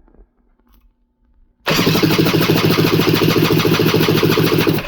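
Electric starter cranking a freshly rebuilt Sea-Doo 951 two-stroke twin on the bench for a compression test, without it firing. It comes in suddenly about a second and a half in, turns over steadily for about three seconds and stops: it rolls over good and the starter is strong.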